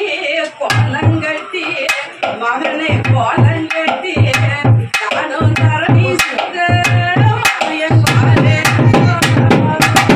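Traditional South Indian temple music: a drum beating paired low strokes about once a second under a reed-pipe melody, with the nadaswaram coming in strongly near the end.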